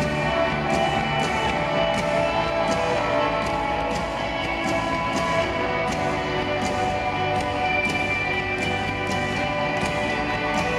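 Live rock band playing a song: held chords over a steady drum beat.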